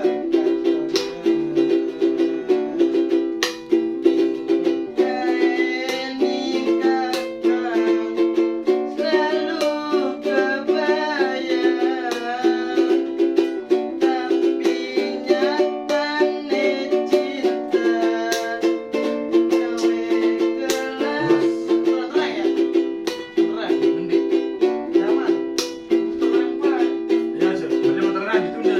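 A cipot, a small ukulele-like plucked string instrument, being played: rapid strummed chords with a melody line running over them.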